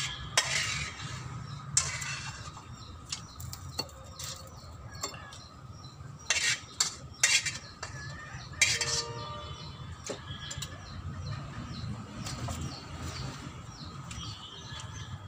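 Eating by hand from a plate, with several sharp clinks and knocks of the plate, spread out and loudest just past the middle.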